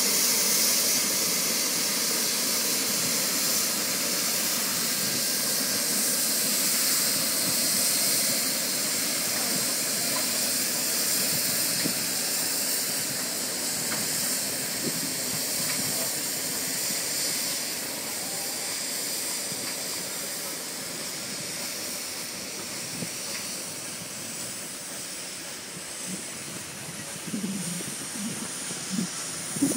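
Steam locomotive giving off a steady hiss of steam, slowly fading as the train draws away.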